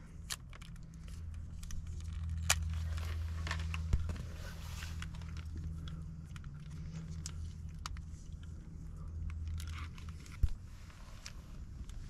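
Black electrical tape being pulled off the roll and wrapped around cable plugs: crinkling and tearing sounds with scattered clicks, over a low rumble that stops near the end.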